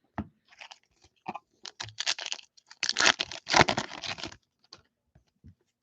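Foil wrapper of a trading-card pack being torn open and crinkled, with cards being handled: irregular crackling rustles and clicks, busiest in the middle of the stretch.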